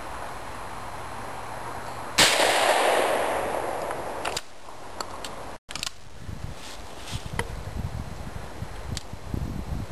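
A single firearm shot about two seconds in, a sharp crack followed by a long echo that fades away over about two seconds.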